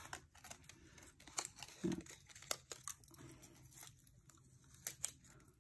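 Thin metal cutting die being lifted and peeled off freshly die-cut cardstock by hand: faint crinkling paper with a scatter of small clicks and ticks as the cut butterflies come free.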